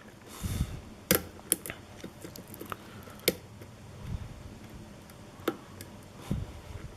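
Lock pick and tension wrench working the pins of a pin-tumbler challenge lock, which is stuck in a deep false set. The result is irregular small metallic clicks and taps, four of them sharper, with a few soft low knocks of handling.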